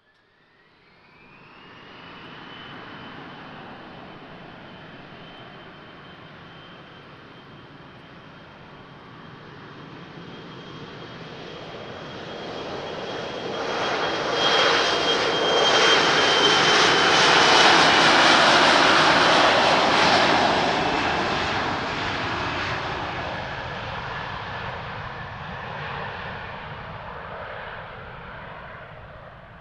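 Embraer E170 jet, its two GE CF34 turbofans spooling up to takeoff power. A whine rises over the first two seconds and then holds steady under the jet noise. The noise swells to its loudest about halfway through as the jet rolls past on its takeoff run, then fades as it climbs away.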